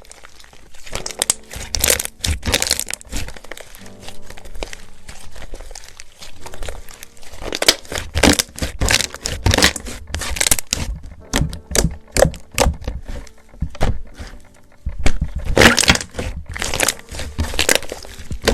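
Slime being squeezed and pressed in the hands, giving bursts of crackling and popping, over quiet jazz music.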